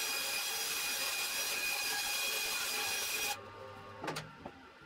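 Bandsaw cutting through a thick wooden board, a steady hiss of blade in wood that stops abruptly about three seconds in as the cut ends, followed by a couple of short wooden knocks as the cut piece is handled.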